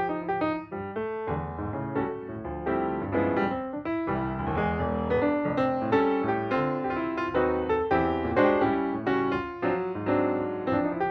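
Background piano music: a steady run of struck notes.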